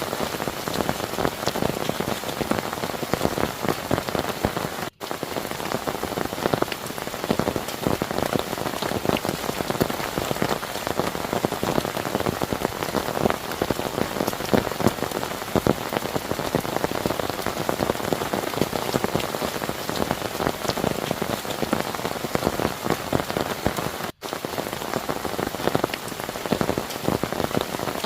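Heavy rain falling steadily, with dense pattering of drops on a near surface. It cuts out for an instant twice, about 5 and 24 seconds in.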